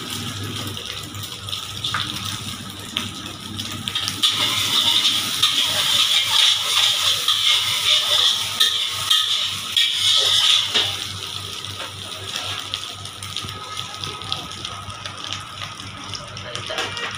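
Egg and chopped vegetables sizzling in a hot steel wok while a metal spatula stirs and scrapes them, with light clinks of metal on the pan. The sizzle is louder and hissier for several seconds in the middle.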